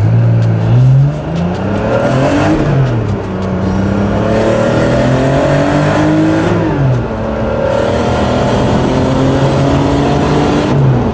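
1986 Porsche 930 Turbo's air-cooled flat-six, with a bigger single turbo and free-flowing exhaust, accelerating at full throttle through the gears. The engine note climbs in pitch three times, dropping back at the upshifts about 2.5 seconds in, about 7 seconds in and right at the end.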